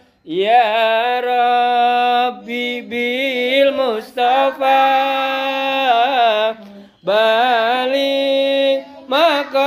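A single voice singing a slow, wordless Islamic devotional chant: long held notes with wavering, ornamented pitch, separated by brief breaks.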